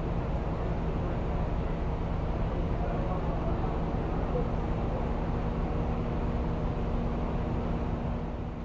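City street ambience: a steady low rumble of traffic with a running engine hum and faint voices, fading out near the end.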